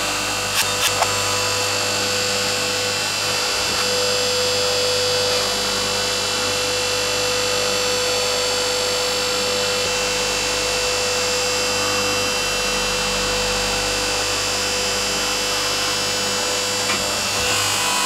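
Hydraulic press running with a steady pump whine, with a few sharp cracks of a plastic toy microwave giving way under the ram in the first second.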